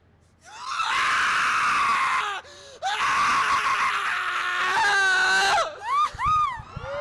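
A man screaming into a handheld microphone over a PA: a long, loud scream starts about half a second in, breaks for a quick breath, and is followed by a second long scream. It ends in shorter rising-and-falling cries near the end.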